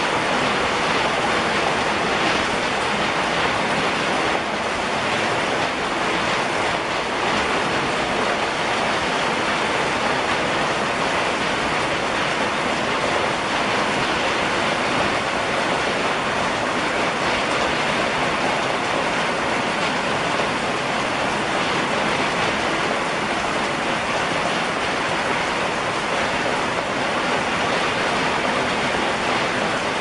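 Steady rain falling on a wet wooden deck: a dense, even hiss with no letup and no thunder.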